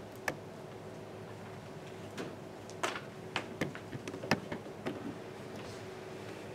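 Footsteps and scattered light knocks and clicks as a person walks up to a wooden witness stand: several short, irregular taps, most of them in the middle of the stretch, over a faint steady hum of room noise.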